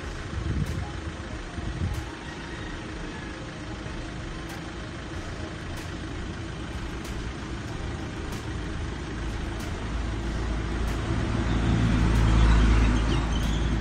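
A motor vehicle engine running nearby, a steady low rumble that grows louder and stronger in its lower notes in the last few seconds.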